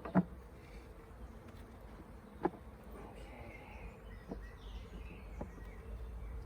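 Honeybees buzzing steadily around an open hive, with a few sharp knocks as hive parts are handled: the loudest comes right at the start, another about two and a half seconds in.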